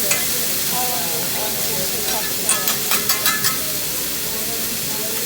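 Food sizzling on a hibachi griddle, a steady frying hiss, with a run of sharp clicks about halfway through.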